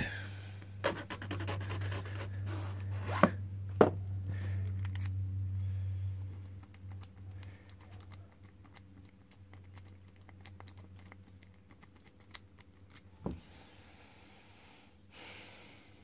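Key blank being worked in an Ilco 30 mm padlock for impressioning: light metallic clicks and scraping, with two sharper clicks about three and four seconds in. A low hum runs under it and fades out around the middle.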